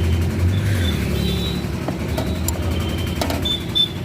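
A vehicle engine idling with a steady low hum, with a few light clicks during workshop work on loose body-mount bolts.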